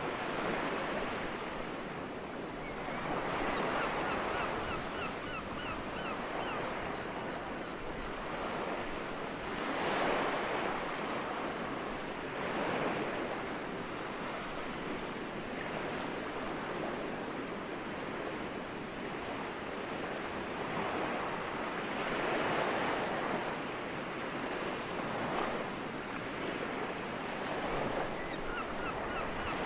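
Soft sea waves washing onto the shore, each one swelling and falling back every few seconds over a steady background rush of surf.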